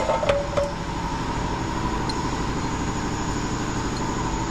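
Steady low mechanical hum with a fast, even pulse and a faint steady whine, like a machine running in a repair shop, with a few light metallic clinks in the first second.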